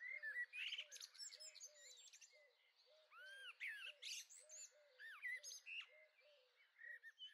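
Faint birdsong: several birds chirping and whistling in quick, overlapping calls, over a low short note that repeats two or three times a second.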